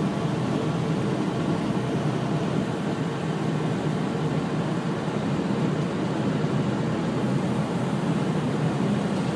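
Steady engine and road noise inside a semi-truck's cab driving on the freeway.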